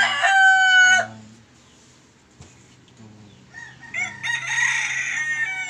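A rooster crowing. One crow ends on a long held note about a second in, and a second crow starts about three and a half seconds in and runs past the end.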